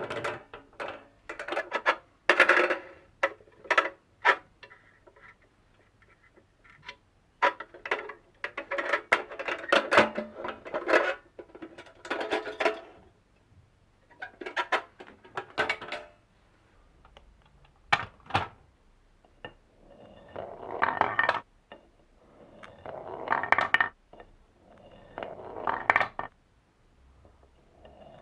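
Marbles rolling and clattering down a wooden marble run, in repeated runs of quick clicks and rattles. Each run lasts a second or few, with short pauses between them.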